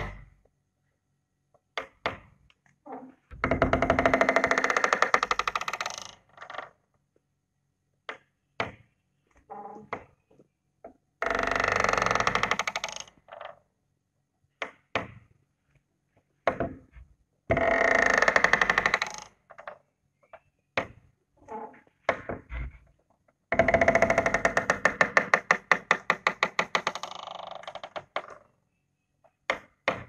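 Old wooden door creaking on its hinges as it swings, four long creaks of two to five seconds each; the last and longest breaks into a stuttering run of separate ticks. Short knocks and clicks of the door and latch fall between the creaks.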